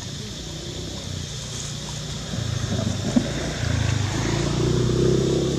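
A motor engine running steadily, growing louder about two seconds in, with a single sharp knock just past the middle.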